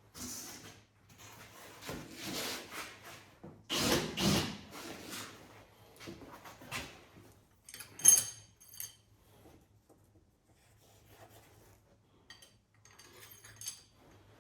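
Engine parts being handled in a workshop: scraping and rubbing for the first few seconds, then a quick run of ringing metal clinks about eight seconds in, the loudest sound, and a few lighter clinks near the end.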